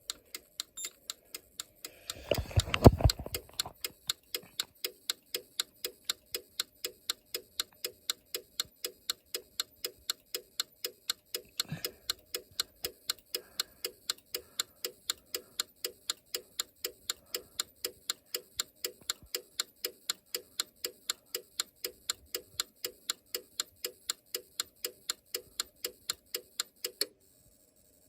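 Steady, evenly spaced clicking, a little over two clicks a second, from a Simplex 4010 fire alarm system while the control panel goes through its slow reset. The clicking stops suddenly near the end, as the reset completes. A heavy thump comes about two to three seconds in.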